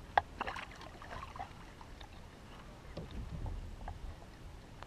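Scattered knocks and clicks of fishing gear against a Jackson Cruise 12 plastic kayak while a hooked redfish is fought beside it. The sharpest knock comes just after the start, and there is a soft low rumble around three seconds in.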